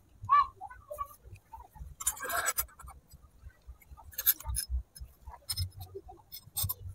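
Light scattered clicks and clinks, with a short scrape about two seconds in, as small twigs are pushed into a miniature clay stove and a tiny metal pan is set on top of it.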